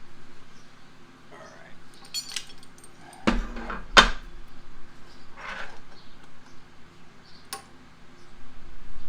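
Metal objects rattling and clanking as they are handled, with two sharp clanks about three and four seconds in, the second the loudest.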